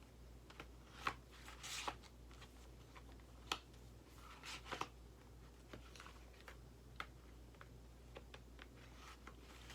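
Plastic DVD cases being handled: faint scattered clicks and short rustles, a few a second at most, with pauses between.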